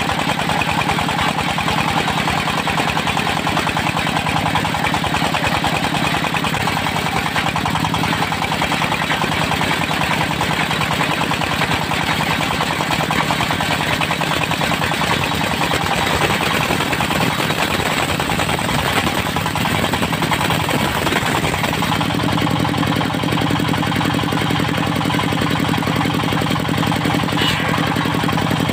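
Diesel engine of a portable circular sawmill running steadily under continuous noise. About two-thirds of the way through, the higher hiss thins out and the low engine note comes forward.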